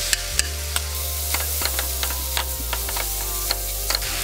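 A stir-fry of riced cauliflower, chicken and pineapple sizzling in a nonstick frying pan, its sauce just added, while a silicone spatula stirs it. Scattered sharp clicks run through the sizzle.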